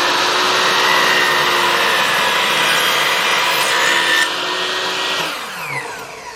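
Electric miter saw running at full speed through a cut in crown molding, then switched off about five seconds in, its motor whine falling as the blade spins down.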